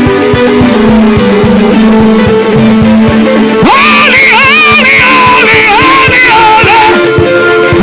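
Live worship music: a band holding sustained chords over a steady drum beat, with a voice entering about halfway through to sing a long, wavering wordless line.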